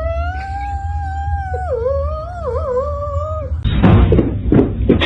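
A cat's long, drawn-out yowl lasting about three and a half seconds, wavering up and down in pitch near the end. It is followed by a burst of loud thumps and rustling.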